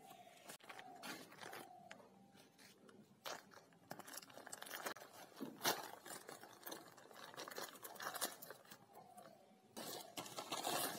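Plastic courier mailer bag crinkling and tearing as it is pulled open by hand, in uneven rustles, with a louder flurry near the end.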